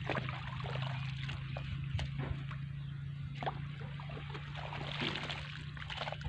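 Irrigation water trickling along a muddy field channel, with scattered wet knocks and scrapes as a hoe cuts into and moves the mud, over a steady low hum.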